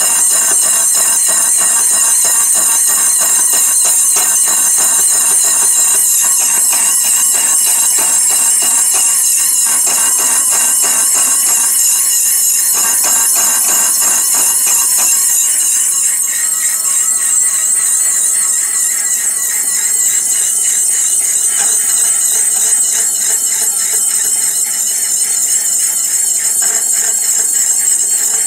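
Slitting saw on a milling machine cutting a slot into the end of a small metal rod: a loud, steady high-pitched squeal made of several ringing tones, which thins a little after about sixteen seconds.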